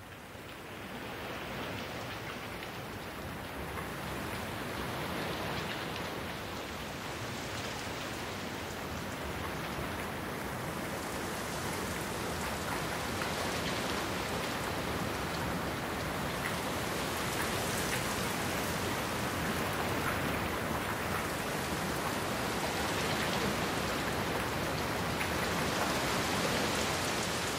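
Steady rain falling, an even hiss that slowly grows louder.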